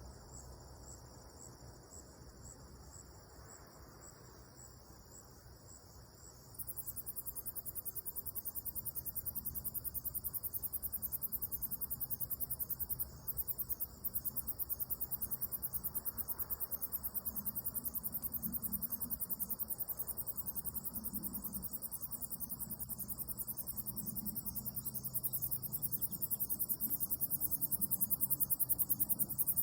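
Insects chirping in the evening: a faint high pulsing at first, then about six and a half seconds in a louder, very high, rapid trill starts and runs on steadily.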